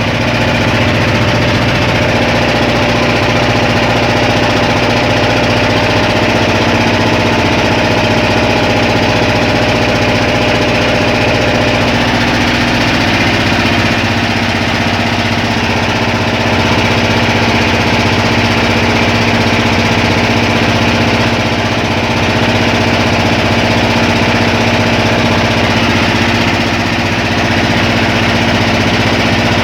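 Boat engine running steadily and loudly, heard from on board, its pitch shifting slightly about halfway through.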